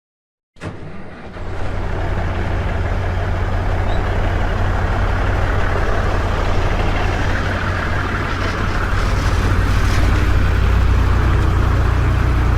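A road vehicle running at a steady speed, heard from inside the cab: a constant low engine drone under road and tyre noise.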